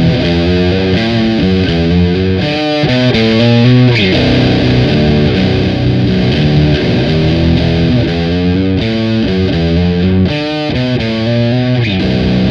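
Fender Jazzmaster electric guitar on its bridge pickup, tuned to C standard, playing a riff of chords and single notes through a Nux DS-3 Classic Distortion pedal, giving a heavily distorted tone.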